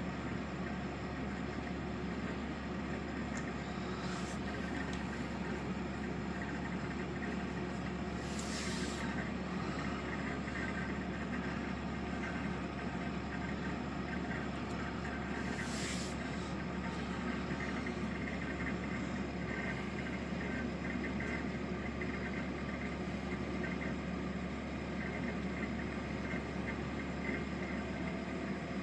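EENOOR PA600 portable air conditioner running steadily in low-energy night mode: a loud, even compressor and fan hum. Two short hisses come through, about 8 and 16 seconds in.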